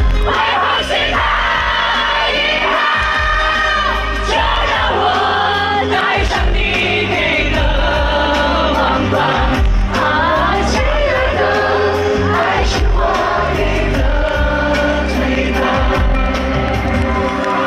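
A male singer sings live into a microphone over loud amplified band backing, with crowd noise underneath, heard through a concert PA.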